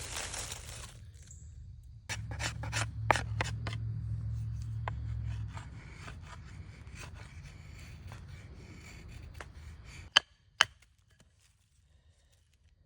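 Wood being worked by hand: scraping and rubbing with a run of sharp clicks and snaps a few seconds in, then two sharp knocks about ten seconds in.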